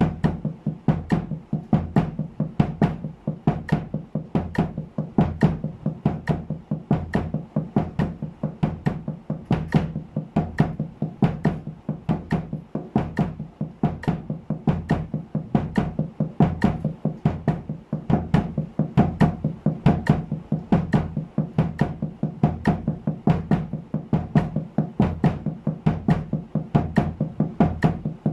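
Drumsticks on a cloth-muffled snare drum playing double strokes in a steady sixteenth-note pattern at 70 bpm, with bass-drum kicks on the last two sixteenths of each beat. About four to five even strokes a second, with no pause.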